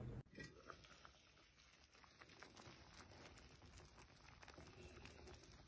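Near silence, with faint scattered little pops and ticks of creamy chicken soup simmering in an enameled Dutch oven.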